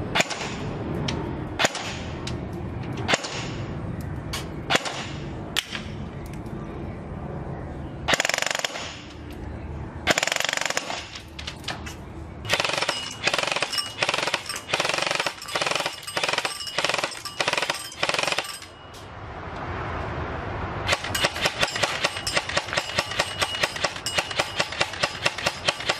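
Classic Army M4 VCW airsoft electric rifle, with a high-torque 21:1 gearbox on an 11.1 V LiPo battery, firing .20 g BBs: scattered single shots at first, then long rapid full-auto bursts from about halfway, with a short pause shortly before the final burst.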